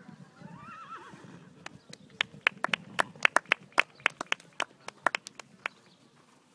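A few spectators clapping by hand: sharp, uneven claps, about four or five a second, for some four seconds before they stop.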